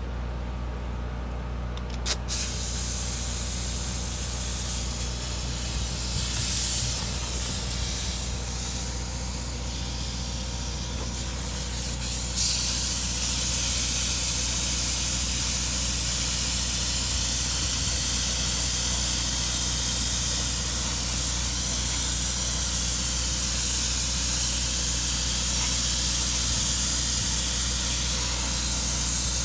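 Paint spray gun hissing as clear coat is sprayed onto the wheel: it starts with a click about two seconds in, goes in short passes, then sprays steadily and louder from about twelve seconds on. A steady low hum runs underneath.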